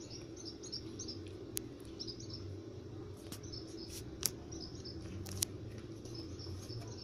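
Faint bird chirps repeating in the background over a low steady hum, with a few light clicks scattered through.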